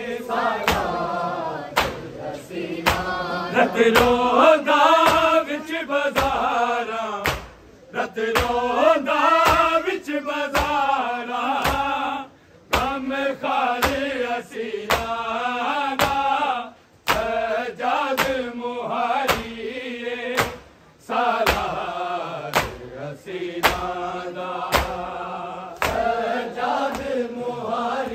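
A group of men chanting a Shia noha lament in unison. Sharp, regular slaps keep time under the singing, about one to one and a half a second, typical of matam chest-beating. The singing breaks off briefly a few times between lines.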